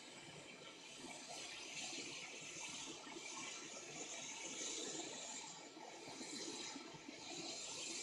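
Hot air rework station blowing air through its nozzle, a steady hiss that swells and eases a little, heating the solder of a broken HDMI port to lift it off the board.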